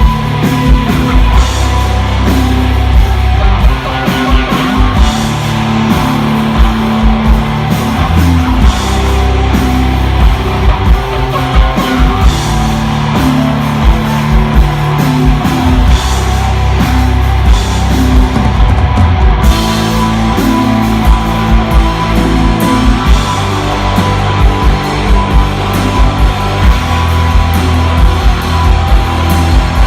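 Live rock band playing loud: electric guitar over sustained low bass notes and a drum kit keeping a steady beat.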